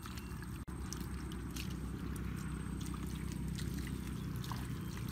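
A hand digging and probing in wet mangrove mud, with small scattered squelches and clicks over a steady low rumble.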